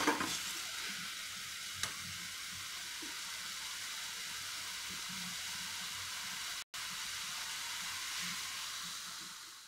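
Chopped capsicum and tomatoes sizzling steadily as they fry in a little oil in a frying pan, with a single light clink of the metal stirring spoon against the pan about two seconds in.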